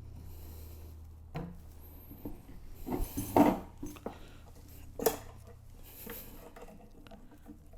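Bungee cords being unhooked from a folded production cart: a few light clinks and knocks, with a louder cluster about three seconds in and one more sharp clink near five seconds.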